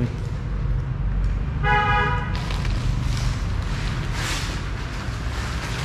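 A vehicle horn toots once, briefly, about two seconds in, over a steady low rumble.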